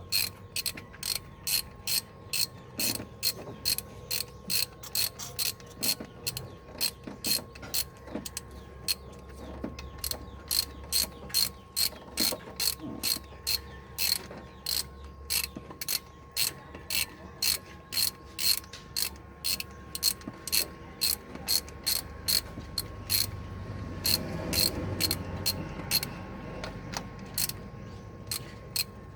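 Hand ratchet wrench clicking steadily, about two to three clicks a second, as a bolt is turned during engine work.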